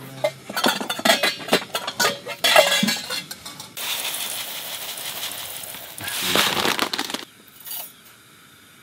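Metal camping cookware clinking and clattering, then dry rice poured from a bag into a stainless steel pot, a steady rushing hiss for about three seconds. A few small clinks follow.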